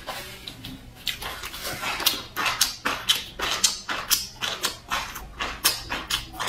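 Close-miked mouth and breath sounds while eating spicy food: a quick, irregular run of short sharp breaths, sniffs and lip smacks, about two or three a second.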